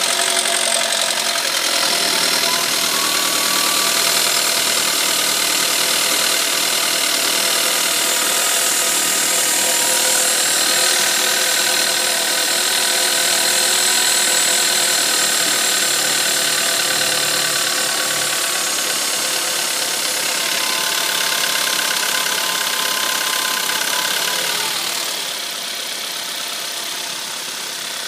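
Audi A3 1.4 TFSI turbocharged four-cylinder petrol engine idling just after a cold start, with the knocking it makes when cold. It gets quieter about 25 seconds in.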